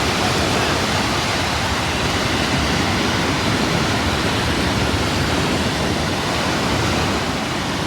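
Sea surf washing onto the beach: a steady, even rush of noise with no distinct breaks.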